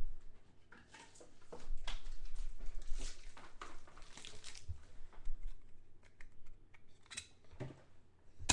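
Rustling with irregular light clicks and taps of plastic being handled: a protective trading-card case being fetched for a card.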